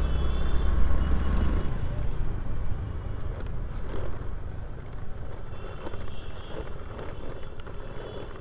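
Riding noise from a Hero Maestro scooter heard from a helmet-mounted camera: a heavy low rumble of wind and traffic with a steady high tone in the first second, then quieter running with scattered knocks and rattles as it rolls onto a rough, dug-up dirt track.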